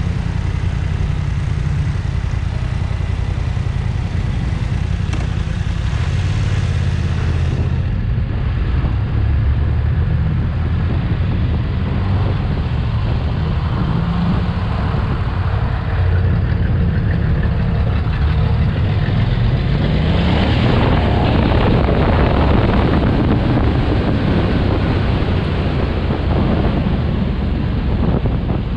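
BMW F900XR parallel-twin motorcycle engine running on the road, with wind rushing over the microphone. A rising pitch comes in about two-thirds of the way through as the revs climb.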